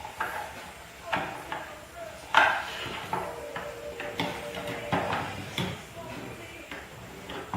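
Irregular metallic clinks and knocks of tools and hardware being handled while the cables are hooked up to a homemade magnet motor-generator; the loudest knock comes about two and a half seconds in.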